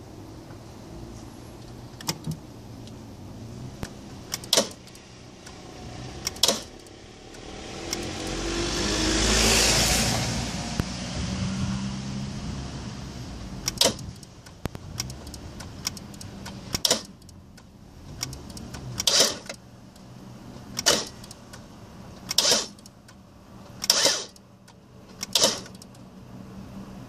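2002 Volvo S40 1.6 that will not start: a series of sharp clicks, about one every second and a half through the second half, over a low steady hum. A broad swell of noise rises and falls about a third of the way in.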